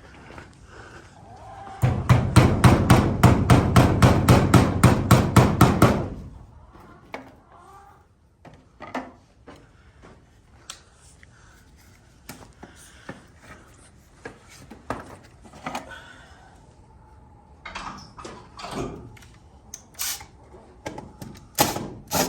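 A cordless power driver fitted with a square bit runs hard for about four seconds, driving a screw in rapid, even pulses. It is followed by scattered light knocks and clatter from handling tools and parts.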